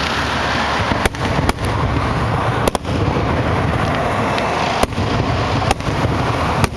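Aerial firework shells bursting in a rapid barrage: a continuous din broken by about half a dozen sharp bangs.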